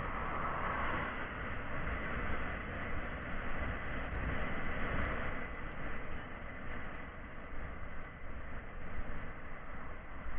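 Noise from an E-Boda SJ6100: a steady rumbling hiss with a thin, constant high whine running through it.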